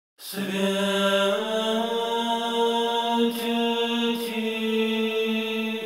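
Intro music of slow choral chant, with voices holding long, sustained notes. The chord shifts once, about a second in.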